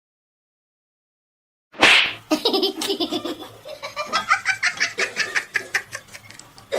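Silence, then about two seconds in a sudden sharp sound, followed by a person laughing hard in quick, repeated bursts.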